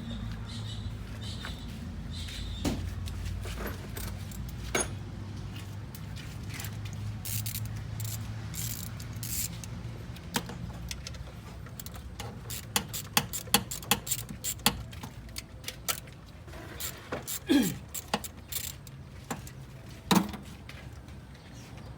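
Sharp metallic clicks and knocks of tools and parts being handled during work on a car's fuel injectors, clustered in the second half. Under them is a low steady hum that fades about halfway through.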